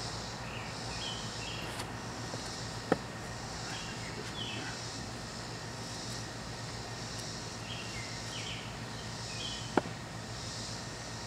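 Outdoor garden ambience: a high insect chorus that swells and fades about once a second over a steady low hum, with short bird chirps scattered through it. Two sharp clicks stand out, about three seconds in and near the end.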